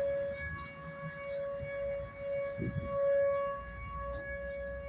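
Far-off outdoor tornado warning siren holding one steady tone, its level swelling and fading. It is sounding for a routine test, not a storm warning.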